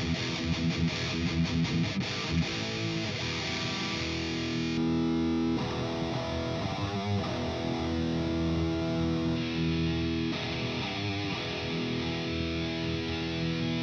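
Distorted electric guitar through an ENGL E530 preamp and a 4x12 Vintage 30 cabinet impulse response: a few quick picked chugs, then chords left to ring. The tone changes about five and ten seconds in as the cabinet impulse response is switched.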